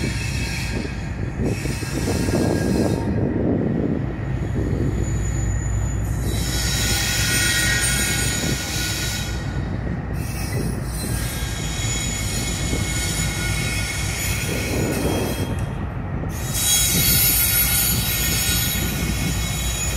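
Norfolk Southern diesel locomotives rolling slowly past with their engines running in a steady low drone. Steel wheels squeal on the rails in two spells, a few seconds in and again near the end.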